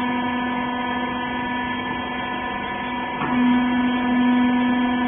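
Rag compression baler's hydraulic pump motor running with a steady hum. About three seconds in there is a knock, and the hum gets louder.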